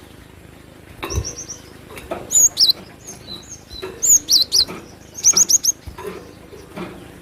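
Cinereous tit (glatik batu) singing: repeated short bursts of quick, sharp, high whistled notes, four or five to a burst, about every second. Faint knocks sound between the phrases.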